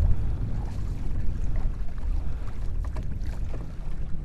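Wind buffeting the microphone: an uneven low rumble, with a few faint ticks over it.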